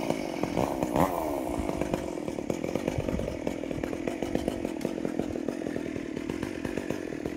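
Chainsaw engine running: the revs rise and fall in the first second or so, then it runs at a steady speed.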